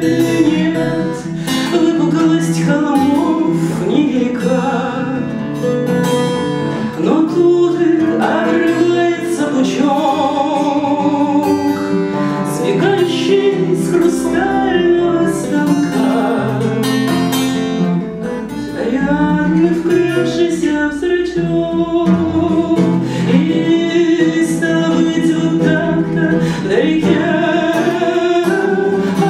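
A woman singing a Russian bard song, accompanying herself by strumming chords on an acoustic guitar.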